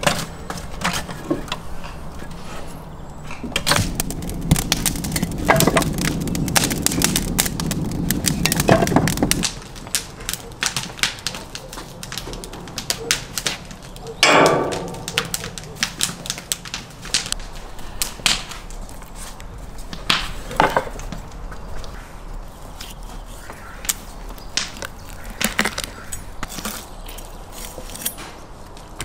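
Irregular knocks and clunks of hand work: fired clay bricks set one on another on a brick stack, then a lamb carcass handled on a metal hook and a knife cutting meat. A louder steady noise runs for about five seconds a few seconds in, and one loud knock comes about halfway through.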